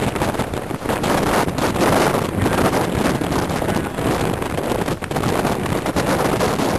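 Strong gusting wind buffeting the microphone: loud, rushing noise that swells and dips with each gust, in winds estimated at about 50 mph.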